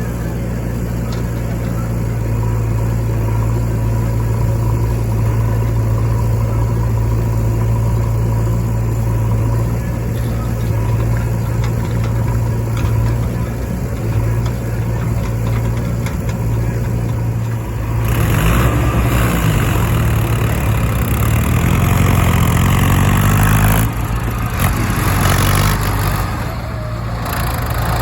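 Heavy diesel engine running steadily at a low drone, then revving up about eighteen seconds in, its pitch rising and falling a few times as the machine works under load.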